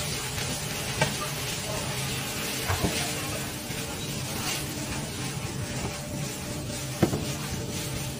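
Automatic drum-type stir-fry machines frying noodles: a steady sizzling hiss over a low hum, with a few sharp metal clanks, the loudest about seven seconds in.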